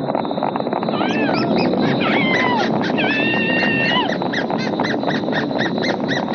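Cartoon sound effects of a horse-drawn coach at full gallop, hoofbeats and wheels clattering fast. From about a second in, a woman's high voice cries out over it in gliding wails. From about four seconds in, these turn into a quick run of short high cries, about four a second.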